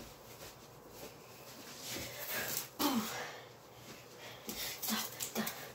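A person's breathy puffs and sniffs while swinging a toy sword, with a short falling grunt about three seconds in and a couple of light clicks near the end.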